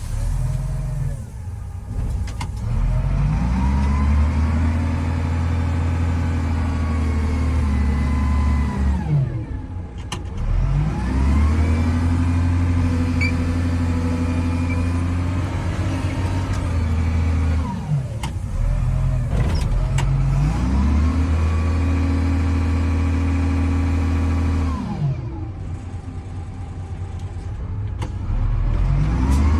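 Tractor front-loader's engine revving up three times, each time holding high revs for several seconds and then dropping back to idle, as it works the bucket loading crushed stone. A few short knocks fall in the low-rev gaps.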